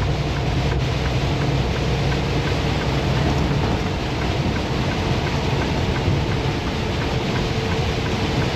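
Inside a Freightliner semi truck's cab while driving in rain: steady engine drone under a constant hiss of tyre, road and rain noise.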